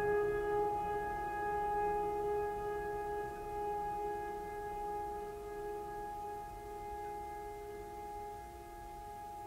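Background music: one long held note with overtones, slowly fading.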